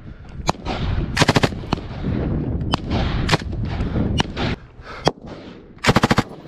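M249 light machine gun firing two short bursts of about five rounds each close to the microphone, one about a second in and one near the end, with single shots in between.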